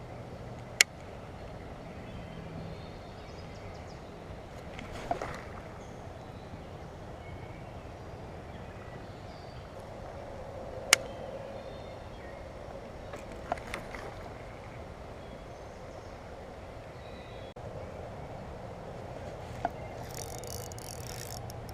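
Steady outdoor creek-side background with a low hum, broken by a few sharp clicks: two loud ones, about a second in and about eleven seconds in, and fainter ones between. A high hiss rises near the end.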